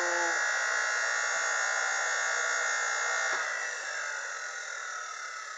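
Single-phase capacitor-start AC induction motor running at full speed with a steady electric whine, fresh from starting up on a separate 240-volt outlet, which shows the motor itself is sound. About three seconds in there is a click as the power is cut, and the motor winds down, its whine slowly falling and fading.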